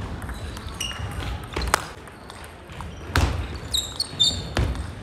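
Table tennis rally: a few sharp clicks of the ball striking rackets and table, with short high squeaks of sneakers on a wooden gym floor near the end.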